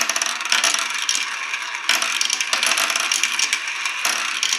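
Many small balls rolling and clattering through a Kumon Kumikumi Slope plastic marble run, dropping down a tube into a funnel bowl and rattling around it as a dense, unbroken stream of quick clicks.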